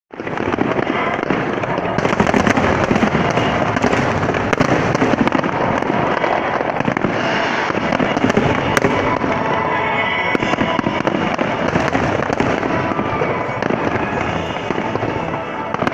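Fireworks display: a dense, continuous barrage of bangs and crackles.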